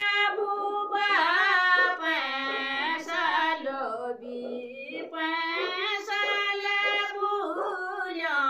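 A high voice singing a melody for the channel's title-card jingle, with long held notes and wavering pitch.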